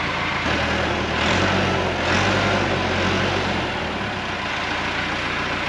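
Farm tractor engine running, revving up about half a second in and holding higher revs for a few seconds before settling back to idle near four seconds in.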